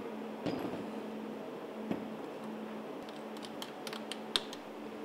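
Small clicks and taps of hands handling a hydrogen fuel cell stack, with a quick run of clicks near the end as fingers work its metal strap clips, over a steady low hum.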